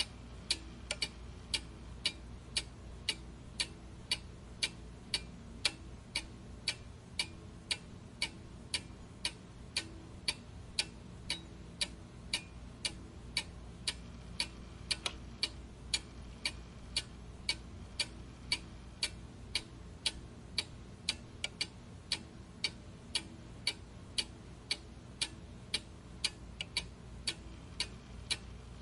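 Steady, regular ticking, about two ticks a second, like a clock, over a faint low hum.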